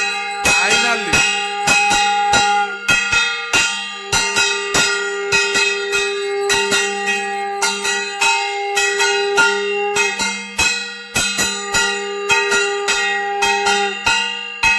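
A conch shell blown in long held blasts, with two short breaks for breath, while a hand-held bell-metal gong (ghanta) is struck with a stick about two to three times a second, its ringing building up.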